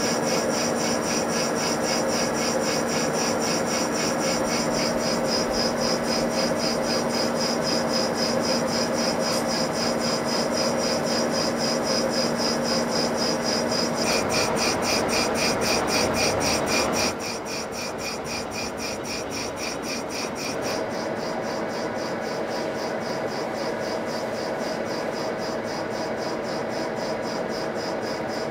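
Metal lathe turning a large steel shaft, the cutting tool taking chips, with a fast, even pulsing and a steady hum. The sound shifts abruptly a few times and drops in level a little past halfway.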